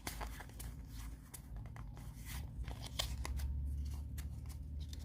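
Foil Pokémon booster pack wrapper being torn open and crinkled in the hands, a run of short crackles and rustles, with a low hum underneath that gets stronger about halfway through.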